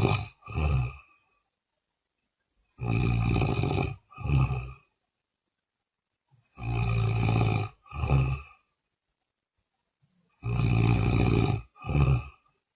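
A person snoring in a steady rhythm: each breath gives a long, rough snore of about a second, followed straight away by a shorter one. The pair repeats about every four seconds, three full times, with silence in between.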